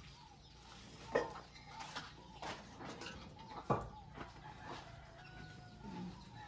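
Chickens clucking now and then, with a few short sharp sounds, the loudest about a second in and just past halfway.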